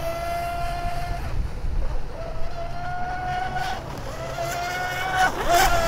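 Electric brushless RC mono-hull race boat running fast across the water, its motor and prop giving a high, steady whine. The whine comes in three long stretches, each rising slightly in pitch, with a low rumble of wind on the microphone underneath.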